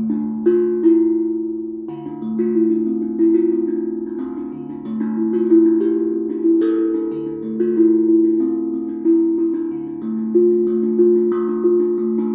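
Steel tongue drum played by hand, its tongues struck with the soft pads of the fingers and thumbs in a repeating rhythmic pattern. Deep notes alternate with higher ones, each note ringing on under the next, and the last notes ring out near the end.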